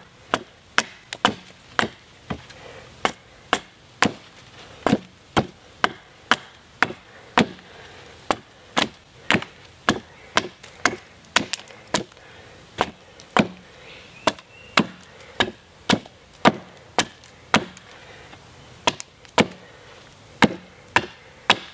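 Hatchet chopping the narrow end of a wooden stave to sharpen it into a point, with steady sharp blows about two a second.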